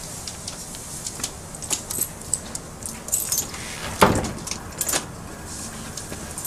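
Keys jangling in a series of small metallic clicks, with a single heavier thud about four seconds in.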